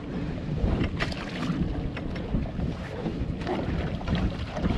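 Wind buffeting the microphone in a low, steady rumble, with a few short splashes and knocks of water against the boat's side as a fish is handled at the waterline.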